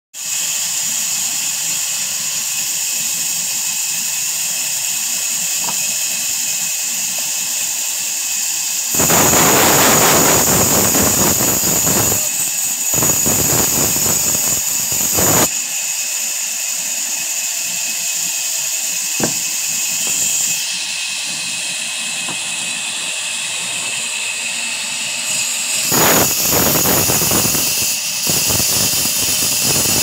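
Sawmill band saw running with a steady high whine, its blade cutting into a log several times: loud rushes of cutting noise about 9 seconds in, again from about 13 to 15 seconds, and near the end.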